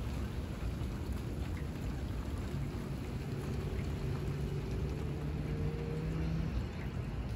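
Steady rain falling. A steady low hum joins for a few seconds in the middle.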